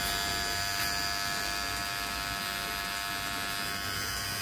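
Mi Beard Trimmer switched on, its motor running with a steady, even whine.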